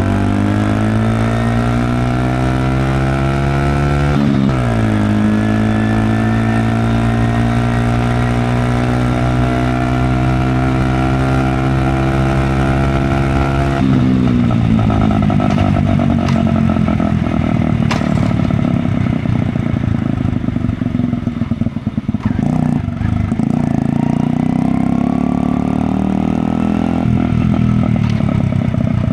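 Honda Magna 50's small single-cylinder four-stroke engine, muffler baffle removed, revving up under acceleration. The pitch drops sharply at a gear change about four seconds in, then climbs again. About fourteen seconds in the throttle closes and the engine runs low and uneven with road noise for the rest.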